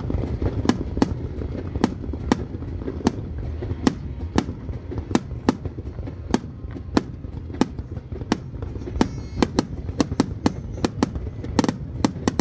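Fireworks bursting in quick succession: a long run of sharp bangs, about two or three a second, over a low rumble.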